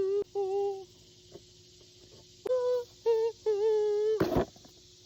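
A person humming a tune in short held notes: two at the start, then after a pause of about a second and a half, three more. Just after the last note comes a brief sharp burst of noise.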